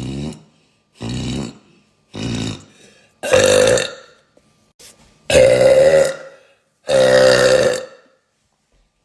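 A woman burping loudly, a run of about six separate burps, each under a second long with short gaps between them; the last three are louder and longer than the first ones.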